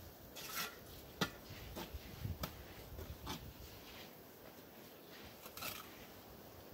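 Bricklaying: a mason's trowel and mortar scraping and tapping on hollow clay bricks as he sets them, in scattered light taps and scrapes, with one sharp click about a second in.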